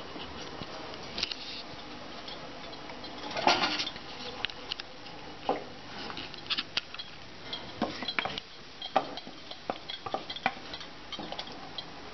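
Wooden spoon stirring sambar in a metal pot, with irregular knocks and scrapes against the pot, the loudest a little over three seconds in, over a steady low hiss.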